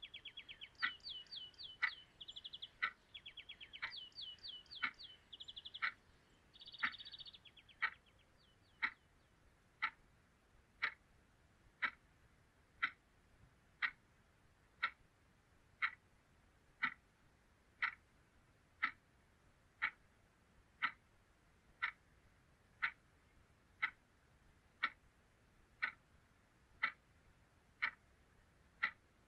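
A clock ticking steadily, about once a second. Rapid high chirping trills, bird-like, sound over the ticking for the first eight seconds or so and then stop.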